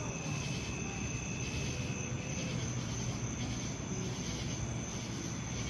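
Steady outdoor background noise: a low rumble and hiss, with a thin high steady whine throughout and a second, fainter tone that fades out about halfway through.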